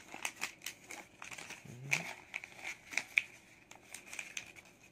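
Paper red envelope crinkling and rustling as it is handled and pulled open by hand, a run of small irregular crackles.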